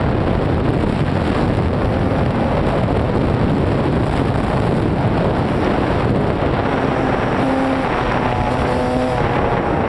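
Kawasaki KX250 dirt bike riding along at speed, with steady wind rush on the microphone largely covering the engine. About seven seconds in, the engine's note comes through the wind and climbs slightly in pitch.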